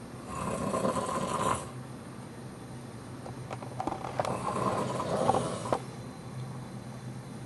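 Loud snoring: two snores, a short one near the start and a longer one with clicks in it a few seconds later.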